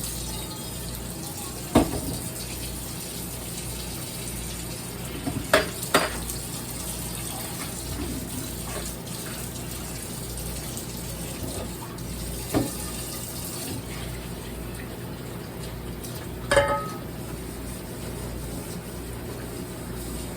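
Water running from a kitchen tap while a pot is washed out in the sink, with a handful of sharp knocks of the pot against the sink.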